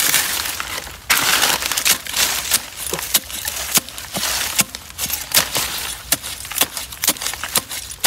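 A long metal blade being driven into soil and roots at the base of a plant: an irregular run of sharp, crunchy strikes that come faster in the second half, with a stretch of scraping and rustling about a second in.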